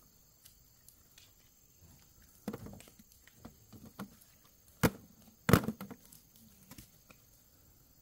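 A series of scattered knocks and clatter, like hard objects being handled or struck, with two sharp, loud knocks about five and five and a half seconds in.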